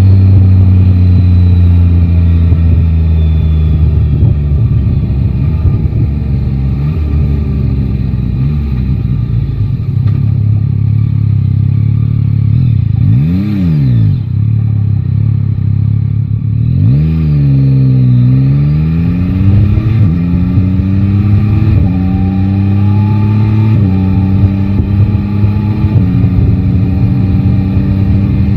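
Yamaha Tracer 9 GT's 890 cc inline-three engine under way: it slows with the pitch falling, gives a quick rev about halfway, then pulls away with the pitch climbing and dropping back at each of several upshifts.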